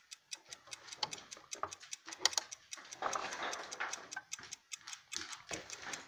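1970 Schatz triple-chime mantel clock's platform escapement ticking quickly and evenly, about five ticks a second.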